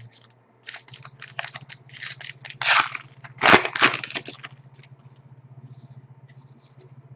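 A trading-card pack wrapper being torn open and the cards handled: a run of crinkles and crackles with two loud rips a few seconds in.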